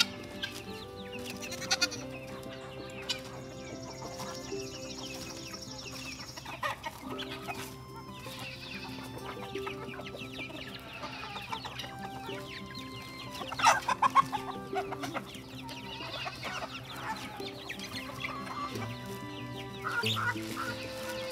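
Poultry clucking and calling over background music with sustained, slowly changing notes; a louder cluster of calls comes about fourteen seconds in.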